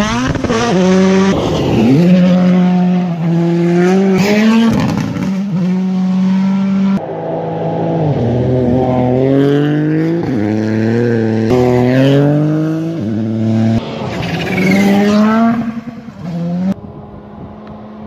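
A 2022 Rally1 rally car's turbocharged four-cylinder engine revving hard on a gravel stage. Its pitch climbs and drops sharply with each gear change, over about two passes. The sound cuts abruptly about seven seconds in, and the engine fades off in the last couple of seconds.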